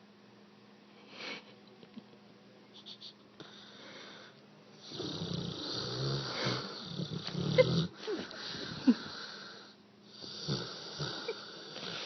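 American Bulldog snoring in its sleep: faint for the first few seconds, then a long snore from about five seconds in, a brief pause, and another snore near the end.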